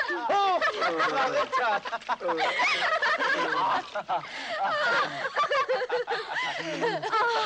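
Excited, high-pitched voices crying out and laughing without a break, pitch swooping up and down, with a shout of "Hilfe!" about a second in.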